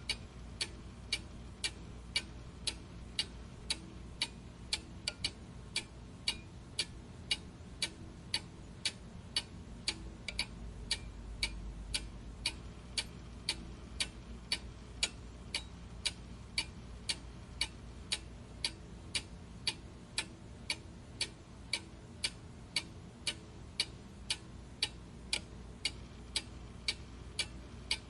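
A clock ticking steadily, a little under two evenly spaced ticks a second, over a faint low hum.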